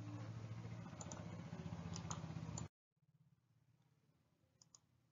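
Quiet room tone with a low steady hum and a few faint light clicks, cutting off to dead silence about two and a half seconds in. A couple more faint clicks come near the end.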